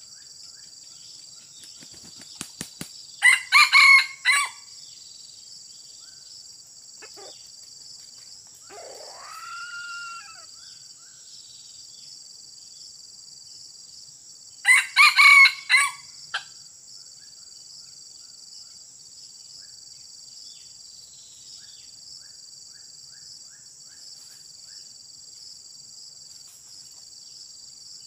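A red junglefowl rooster crowing twice, short broken crows about eleven seconds apart, over a steady high hum of insects. A fainter rising-and-falling call comes between the crows.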